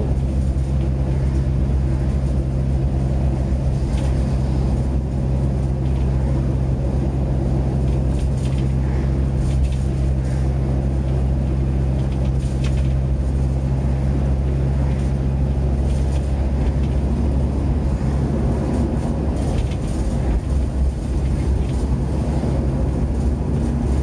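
A VW T4 Transporter van driving, heard from inside the cabin: a steady engine and road drone, with light clicks and rattles from the van scattered through it.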